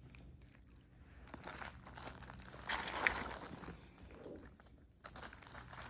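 Plastic toy packaging crinkling as it is handled, in a few bouts, loudest near the middle.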